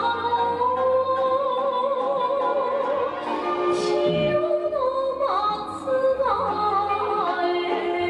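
Music for a geisha's fan dance: a singing voice holding long, wavering notes that slide down now and then, over a steady low tone.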